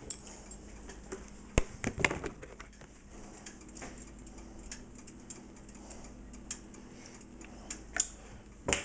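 Scattered light clicks and knocks of kitchen items being handled, the strongest about a second and a half in, shortly after, and near the end, over a faint steady hum.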